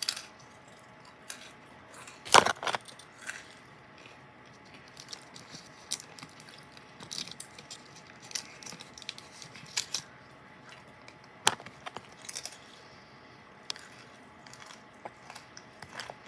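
Crunching and chewing of whole grain Wheat Thins crackers with cheese: scattered short crunches and crackles, the loudest about two seconds in and another sharp one near twelve seconds.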